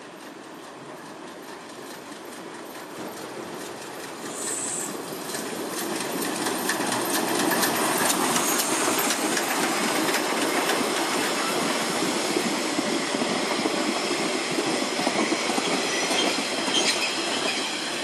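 Metre-gauge Mallet steam tank locomotive 99 5906-5 and its coaches rolling into the station. The sound grows louder over the first several seconds, then holds as the coaches pass close by, their wheels clattering over the rail joints. There is a brief high squeal about four seconds in.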